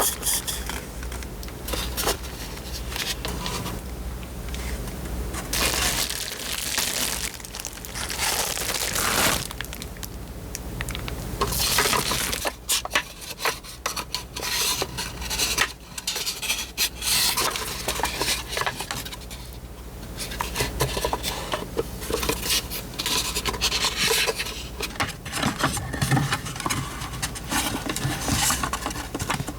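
Hands unwrapping and handling packaged stationery gifts: irregular rustling and rubbing of paper and plastic packaging, with light taps and clinks of small hard items.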